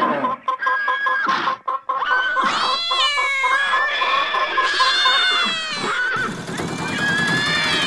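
Chickens clucking and calling, laid on as a farmyard sound effect. Several long calls rise and fall in pitch.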